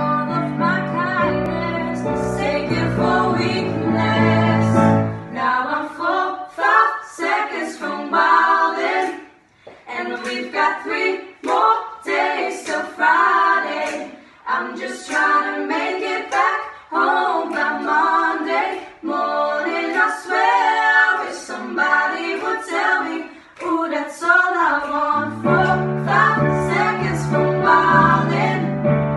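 Four young female voices singing a pop song together in harmony. Steady keyboard chords sound under the voices for about the first five seconds, drop out so the voices carry on unaccompanied, and come back about 25 seconds in.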